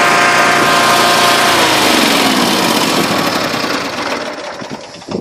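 A loud engine running, its pitch falling and its sound fading away over the last couple of seconds, as when a motor passes by.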